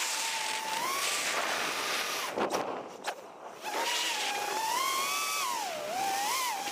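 6S FPV quadcopter's brushless motors and propellers whining, the pitch rising and falling as the throttle changes. About two and a half seconds in the whine drops away for about a second, broken by a couple of short rushes of noise, then comes back.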